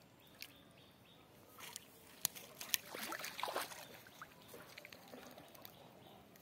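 Water splashing as a small hooked fish thrashes at the surface of a pond, with a couple of sharp slaps, loudest about three seconds in.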